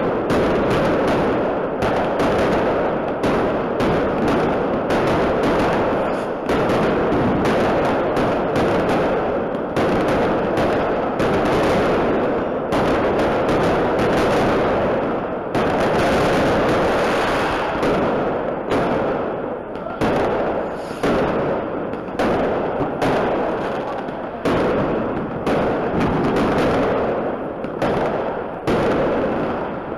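Aerial firework shells bursting in a rapid, unbroken barrage: several sharp bangs a second over a continuous din.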